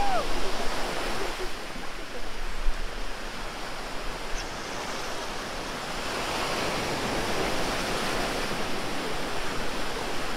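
Small ocean waves breaking and washing through the shallows: a steady rush of surf.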